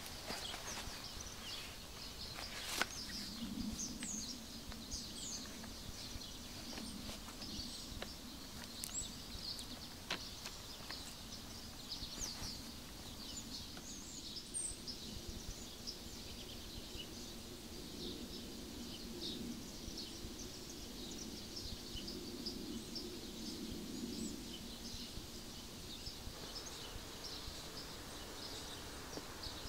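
Forest ambience with several small birds chirping and singing throughout. A sharp click comes about three seconds in, and a faint low drone runs through the middle and fades out near the end.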